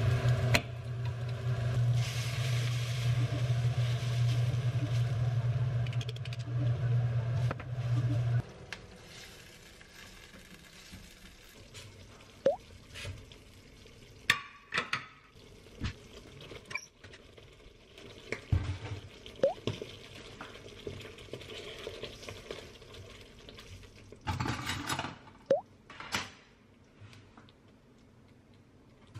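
Kitchen range hood fan running with a steady hum, cut off suddenly about eight seconds in. After that, scattered clinks, knocks and a few short squeaks of pans and utensils being handled.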